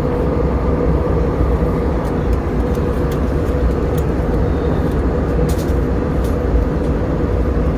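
Steady roar of a jet airliner's cabin in cruise: engine and airflow noise with a constant hum.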